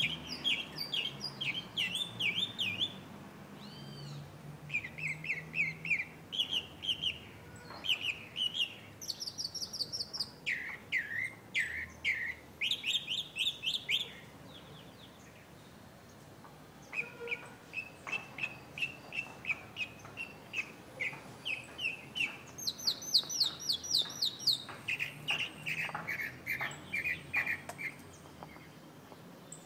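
Chalk-browed mockingbird singing: a string of varied phrases, each a quick run of the same note repeated several times, with a pause of a few seconds about halfway through.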